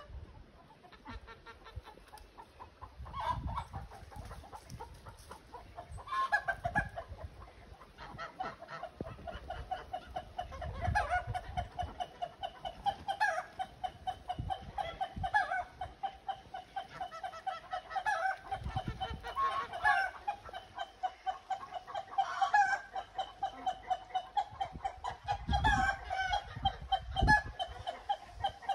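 A flock of free-range domestic geese and chickens calling: a busy, continuous chatter of rapid calls, with louder calls standing out every second or two.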